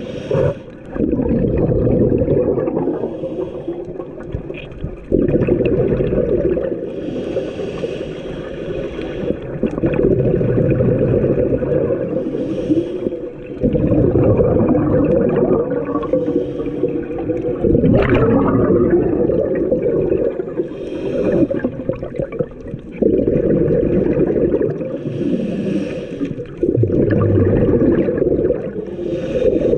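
Scuba diver breathing through a demand regulator underwater: long stretches of rumbling, gurgling exhaled bubbles, broken every several seconds by a short hiss of inhaled air.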